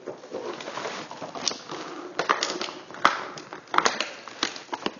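Plastic toy packaging crackling, with a run of sharp clicks and snaps about every half second to a second as figurines are worked out of it.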